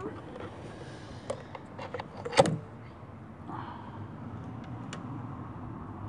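Hands working the rubber air intake tube off the throttle body: scattered plastic and rubber clicks and knocks, one sharp knock about two and a half seconds in, then a steadier rustling scrape. The engine is off.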